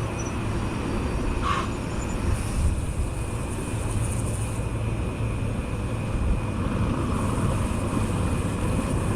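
Steady low rumble of wind buffeting the microphone while riding a bicycle, with a brief hiss about a second and a half in.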